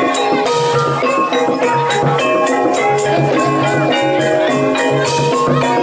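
Live Banyumasan ebeg ensemble music: struck keyed instruments playing a melody of ringing notes over a steady kendang drum beat.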